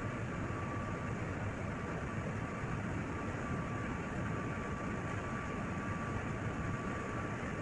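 Container ship engine-room machinery running steadily: an even, dense mechanical noise with a faint high whine over it.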